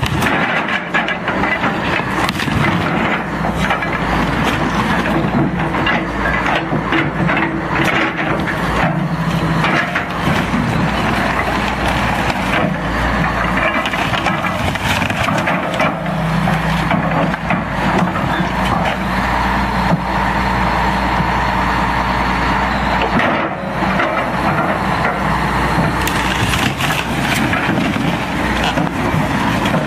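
An excavator bucket crushing and breaking up a wood-panelled hull, with steady cracking and splintering of wood and panels over the low running of the machine's engine.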